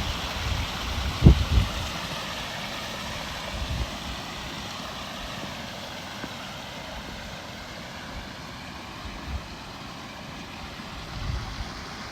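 Newly built pond waterfall running: a steady rush of falling water, with a few low thumps, the strongest about a second in.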